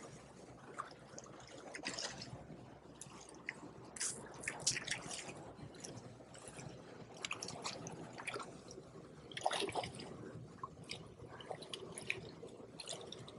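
A hooked smallmouth bass splashing and thrashing at the surface in irregular bursts as it is landed against the rocks, busiest about four and nine and a half seconds in. Behind it, water rushing steadily over a low dam.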